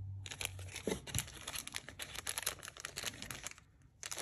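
Small clear plastic zip bag holding a metal miniature crinkling as it is handled between the fingers: rapid, irregular crackles that stop briefly just before the end.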